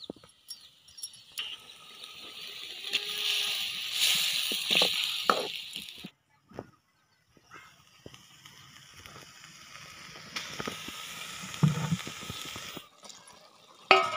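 Masala gravy sizzling in a metal kadai as it is stirred, with scraping knocks of a steel ladle and a sharp clink of the ladle against the pan near the end. The sound drops out completely for over a second partway through.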